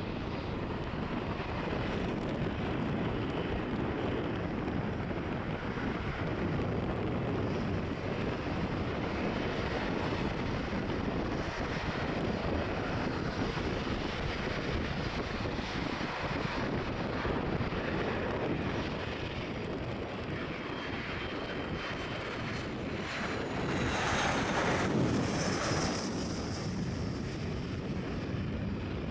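Jet engine noise from a landing McDonnell Douglas MD-87, from its rear-mounted Pratt & Whitney JT8D turbofans. It is a steady rumble that swells and grows brighter about 24 seconds in.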